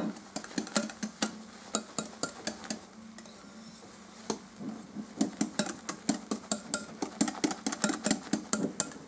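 Wire whisk beating a sour cream and egg mixture in a glass bowl, the whisk clicking against the glass. The clicks come unevenly at first, pause briefly around the middle, then run at about three or four a second.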